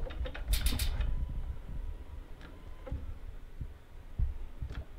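Sharp electrical clicking from down in a 2019 Harley-Davidson Tri Glide trike: a quick run of clicks about half a second in, then a few single clicks spaced out. It is the sign of a battery too flat to crank the engine, run down to under 8 volts.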